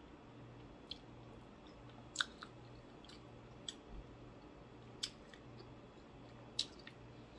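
Mouth sounds of eating with the fingers: quiet chewing, broken by about half a dozen short, sharp lip smacks and tongue clicks. The loudest comes about two seconds in. A faint steady hum sits underneath.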